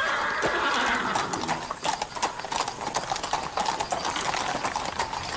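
Horse hooves clip-clopping on hard ground in a quick, irregular patter, over the murmur of a crowd.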